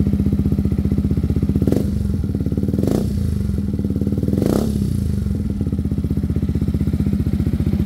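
Yamaha XMAX 250's single-cylinder engine idling through a Vilan MV1 stainless slip-on exhaust with the DB killer removed. The throttle is blipped lightly three times in the first half, each rev rising briefly and falling back to a steady, pulsing idle.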